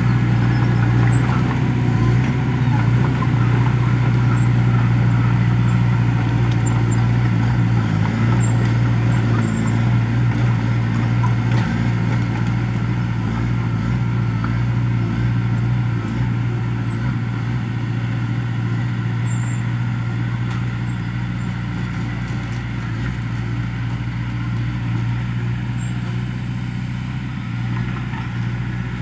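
Komatsu crawler bulldozer's diesel engine running steadily as it works the dirt, fading slowly in the second half as the machine moves away.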